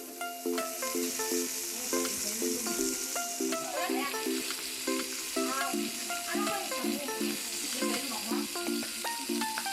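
Pork belly sizzling steadily on a tabletop grill, under background music with a run of plucked-sounding notes.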